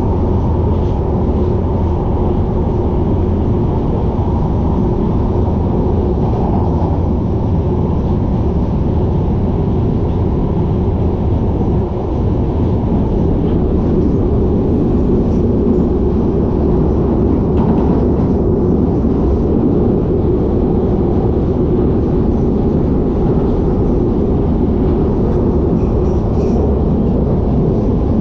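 Steady, loud rumble of a London Underground 1973 stock train running through a tunnel, heard inside the carriage: wheels on rail and running gear.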